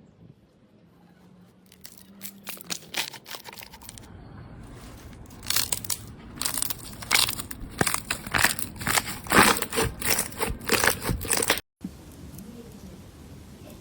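Slime being squeezed and pressed, giving dense crackling and crunching clicks that build up and grow louder, then stop abruptly about twelve seconds in.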